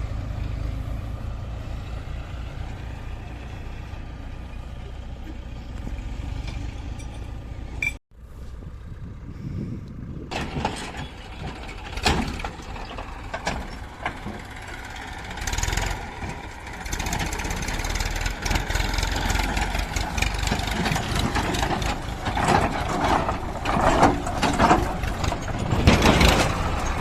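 Diesel engines of a JCB 3DX backhoe loader and tractors running at work. The sound cuts out abruptly about eight seconds in, then returns busier, with repeated sharp knocks and clatter over louder engine noise toward the end.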